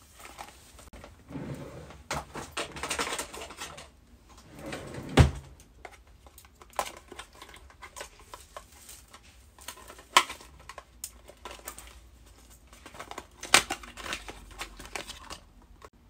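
Cosmetic packaging being handled and unwrapped: rustling and crinkling broken by scattered clicks and knocks, the sharpest about five seconds in.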